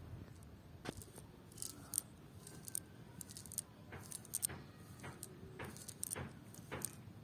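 A nylon cast net being handled and picked through by hand: irregular rustling and crinkling of the mesh with scattered small sharp clicks.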